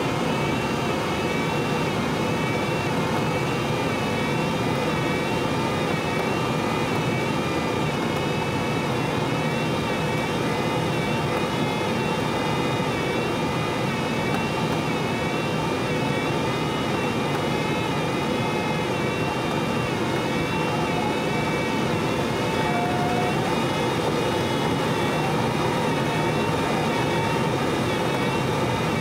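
Steady rush of airflow over the canopy and fuselage of an unpowered Schleicher ASW-15b sailplane in gliding flight, heard from inside the cockpit. A faint high warbling tone wavers up and down in pitch over it.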